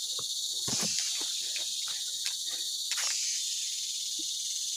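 Steady, high-pitched chorus of forest insects such as crickets, with irregular soft footsteps on leaf litter and damp soil.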